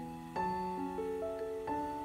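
Background music: slow, sustained keyboard chords that change twice.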